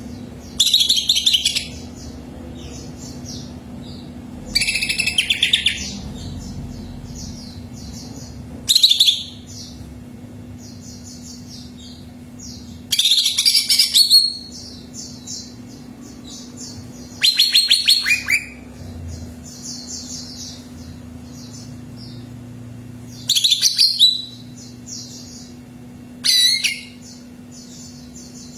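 Greater green leafbird (cucak ijo) singing: seven loud, rapid, rattling song phrases of about a second each, spaced every three to five seconds, with softer quick high chirps running between them. A faint steady hum sits underneath.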